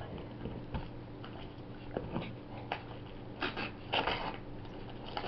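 Jack Russell terrier nosing, biting and tearing at wrapping paper on a present: a few short crinkles and rips of paper, the loudest about three and a half to four seconds in, over a faint steady hum.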